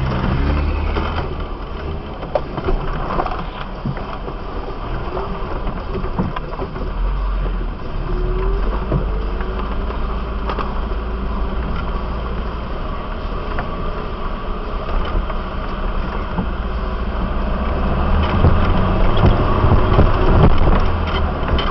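Off-road 4x4's engine running as the vehicle drives slowly over rough gravel, heard from a camera on its bonnet, with a heavy low rumble and scattered knocks and rattles. It gets louder over the last few seconds.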